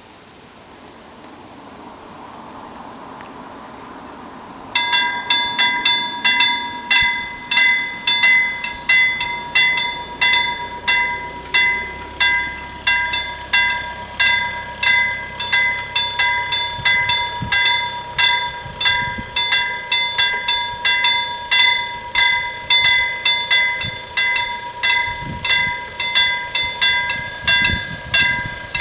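Level-crossing warning bells start ringing about five seconds in, striking rapidly and evenly without a break, with a bright, bell-like ring.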